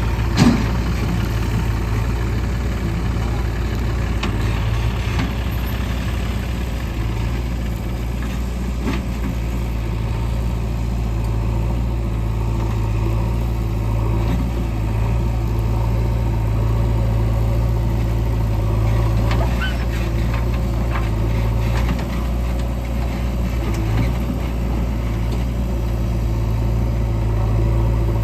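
Heavy diesel engines of a JCB 3DX backhoe loader and a tractor running steadily, with one sharp knock about half a second in.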